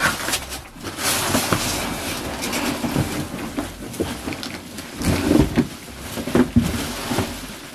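Cardboard box and plastic wrapping rustling and scraping as a hard-shell suitcase is wrestled out of its shipping box, with several knocks and thuds, the heaviest a little past the middle.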